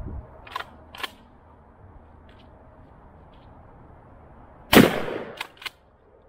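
A Stevens 12-gauge pump-action shotgun fires a double-slug shell once, about three-quarters of the way in; the blast rings out and fades over about a second. Two sharp clicks follow in quick succession as the pump is cycled. Two lighter clicks come near the start.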